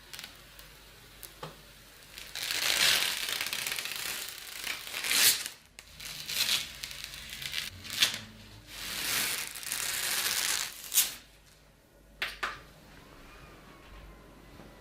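Packaging being handled: plastic and paper crinkling and tearing in several rustling bursts, with a few sharp clicks.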